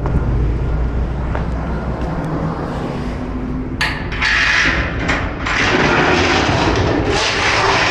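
A vehicle engine rumbles low. About four seconds in, a loud rushing hiss starts, breaks off briefly, then carries on.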